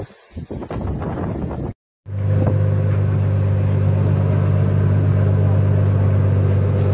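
Wind buffeting the microphone over splashing waves, cut off abruptly a little under two seconds in; then a tugboat's engine drones steadily and low, heard on board with sea noise over it.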